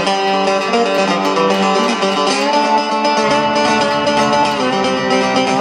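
Background music: a guitar-led country/bluegrass-style track with a steady beat.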